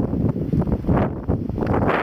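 Strong gusty wind buffeting the microphone, a loud low rumbling rush that surges in gusts about a second in and again near the end.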